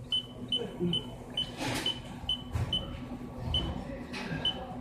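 CNC mill control beeping in short, high beeps about two a second over the machine's steady hum, with two brief hisses, about two seconds and four seconds in.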